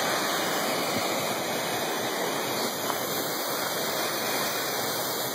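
Waterfall's falling water making a steady rushing noise.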